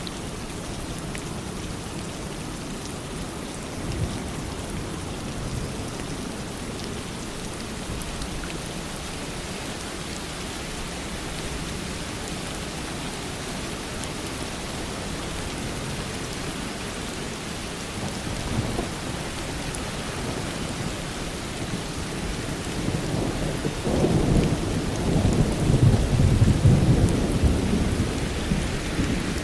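Steady rain falling, with a low rumble of thunder building in the second half and loudest near the end.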